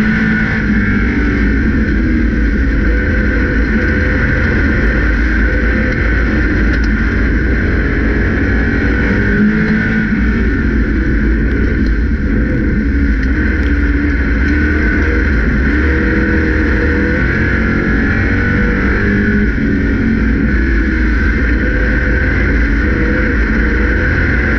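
Grand National stock car's engine under racing load, heard from inside the cockpit: a loud, constant rumble whose pitch rises and falls repeatedly as the driver gets on and off the throttle.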